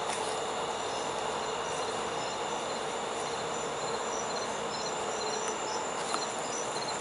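Crickets chirping in short, repeated groups of high chirps over a steady background hiss.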